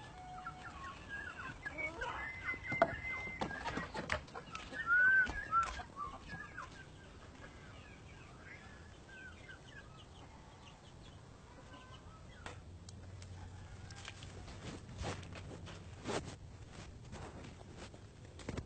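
Chickens clucking and calling, busiest in the first several seconds, with a few sharp knocks in the second half.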